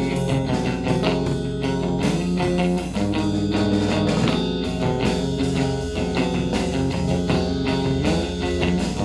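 Psychedelic rock music: an instrumental passage with guitar over a steady drum beat.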